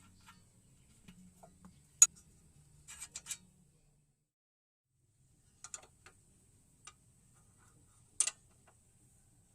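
Scattered sharp clicks and clinks of hand tools and parts being handled during front suspension work: a loud click about two seconds in, a quick run of three or four around three seconds, a few lighter ones, and another loud click near the end.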